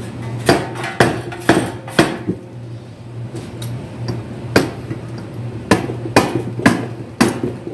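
Dead-blow mallet striking the wings of a Briggs & Stratton 19 HP engine's crankcase cover to knock the freshly unbolted cover loose. Four blows come about half a second apart, then a pause of a couple of seconds, then five more.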